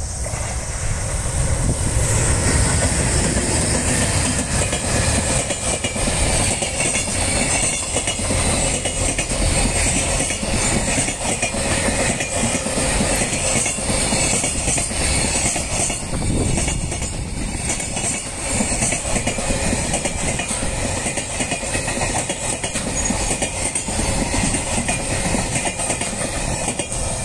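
JR Freight EH500 electric locomotive passing close by, then a long train of container wagons rolling past, the wheels clicking over the rail joints. The sound builds over the first two seconds as the train arrives and then holds steady.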